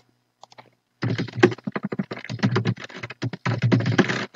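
Fast typing on a computer keyboard: a few faint key clicks, then from about a second in a quick, unbroken run of keystrokes.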